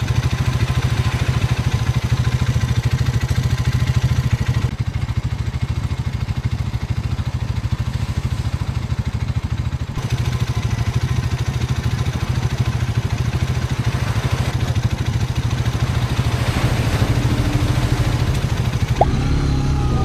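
Hero Hunk 160R 4V's single-cylinder engine running steadily under way, a constant low drone with a rush of noise over it.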